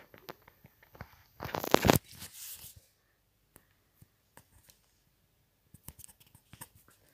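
Rustling and rubbing noise from a phone being handled close to its microphone: a loud rustle about a second and a half in, lasting about half a second, then a softer rustle and scattered light clicks.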